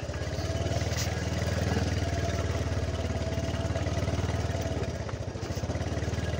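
Motorcycle engine running steadily at low revs, with a dip in the middle, while riding along a rough dirt track.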